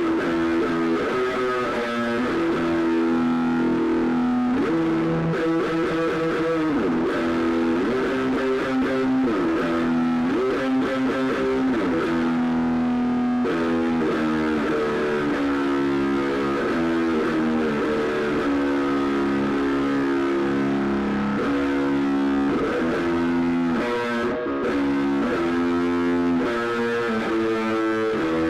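Instrumental passage of a grunge rock song: distorted electric guitar playing held notes and chords, with several notes sliding up and down in pitch, over a steady full band sound.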